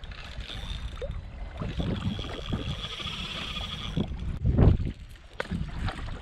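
Spinning reel being cranked with a steady high whir as a hooked red snapper is reeled up, over wind rumble and water lapping against a kayak hull; two loud thumps of water about four and a half and five and a half seconds in as the fish is brought alongside.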